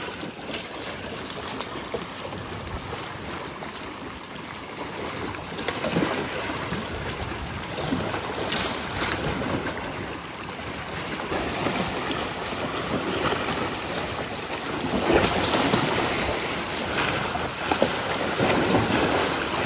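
Sea waves washing and splashing against breakwater rocks, with wind rushing on the microphone; the wash swells louder about fifteen seconds in.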